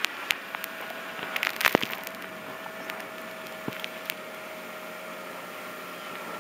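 Scattered sharp clicks and knocks over a steady hum, with a tight cluster of them about a second and a half in. They fit handling noise from a handheld camera being gripped and zoomed.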